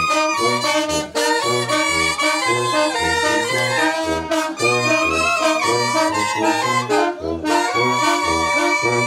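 Live brass band playing: trombone and trumpets carrying the melody over a bass drum, with a low bass line bouncing between two notes about twice a second.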